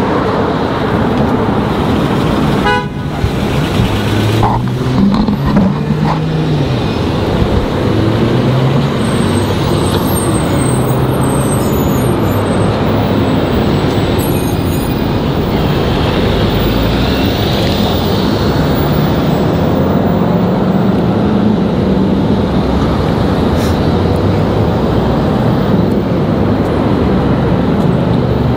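Busy road traffic: cars and other vehicles running past close by, a steady dense rumble with engine tones rising and falling.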